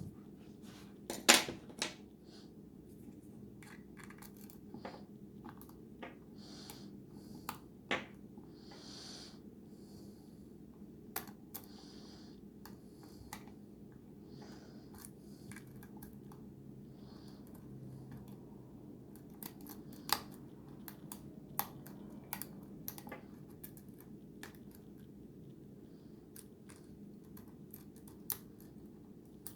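Schlage pin-tumbler lock with security pins being single-pin picked: irregular small metallic clicks and scrapes of the pick and tension wrench working the pins, with a few louder clicks, over a steady low hum.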